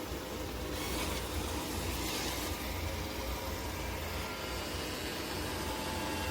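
MOVA P10 Pro Ultra robot vacuum-and-mop running steadily, a motor hum with airflow hiss that swells briefly twice, about one and two seconds in.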